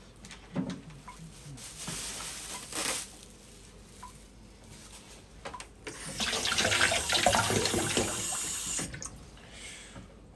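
Kitchen tap running into the sink as a Japanese long green onion (naganegi) is rinsed under it, a steady splashing for about three seconds starting a little past the middle. Shorter rustling and handling sounds come before it.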